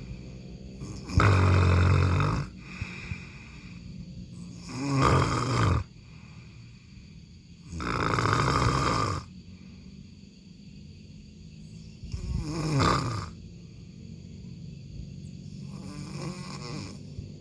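A person snoring: five drawn-out snores about every three to four seconds, with quieter breathing between them, the last snore fainter.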